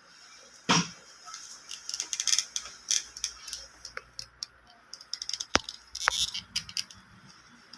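Plastic retaining clips on a scooter fuel pump assembly being pried off by hand: a run of sharp clicks and short scraping rattles, with a louder snap about a second in and two more sharp snaps near the end.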